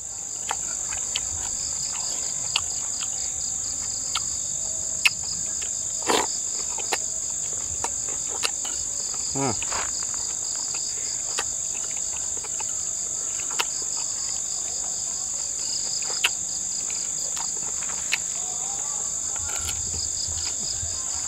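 Steady high-pitched chorus of chirring insects, with a faster pulsing chirp layered just beneath it. Scattered light clicks of a metal spoon against a plate.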